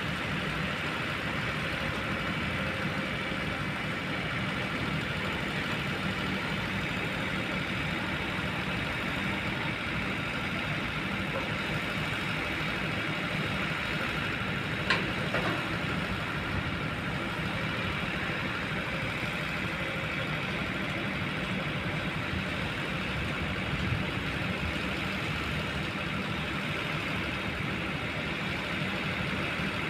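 Kobelco long boom excavator's diesel engine running at a steady, even level, with a single sharp knock about halfway through.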